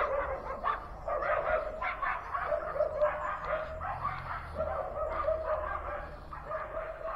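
A dog barking and yipping over and over in a quick run of short calls.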